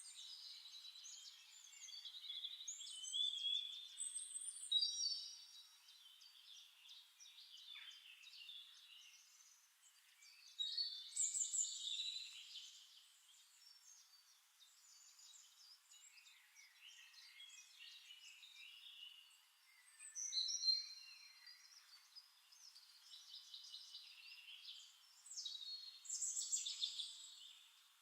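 Songbirds singing and chirping, several calls overlapping, in bursts of warbling a few seconds long separated by quieter stretches of scattered chirps.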